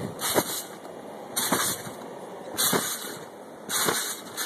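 Trampoline bouncing: four landings a little over a second apart, each with a short falling creak from the springs and mat and a burst of rushing noise.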